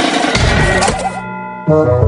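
Cartoon soundtrack: background music mixed with comic sound effects, with a dull thump about half a second in.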